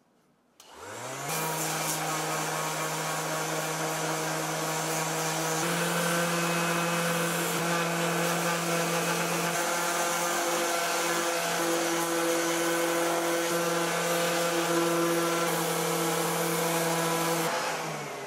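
Cordless power sander spinning up with a rising whine under a second in, then running steadily as its pad sands a lime-wood (linden) bowl, its pitch shifting a few times. It winds down near the end.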